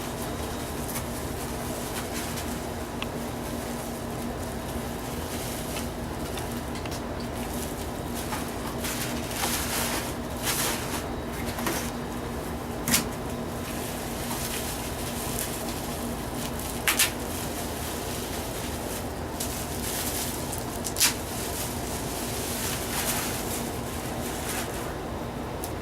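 Packing material in a cardboard box rustling as it is dug through by hand, with a few sharp clicks or taps scattered through, over a steady low hum.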